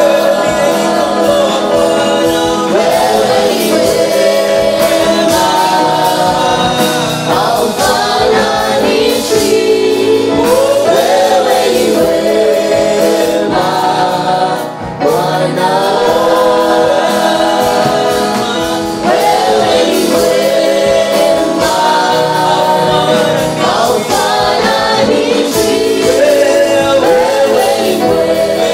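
Gospel song: singing with instrumental backing, with a brief dip in loudness about halfway through.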